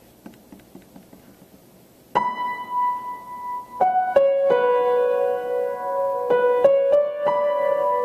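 Piano being played slowly: a first note rings out about two seconds in, then sustained notes and chords from about four seconds on.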